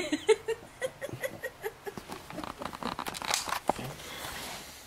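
Handling noise from a handheld camera being moved about: a run of short knocks and clicks, then rustling that fades near the end.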